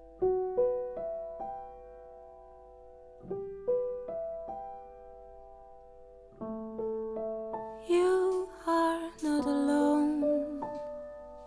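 Background music: a slow piano ballad, with notes struck a few at a time and left to ring. A female voice starts singing about eight seconds in.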